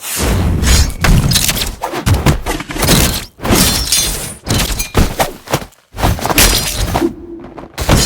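Fight sound effects: a fast run of heavy thuds and crashes with shattering and breaking debris, starting abruptly and broken by two short lulls.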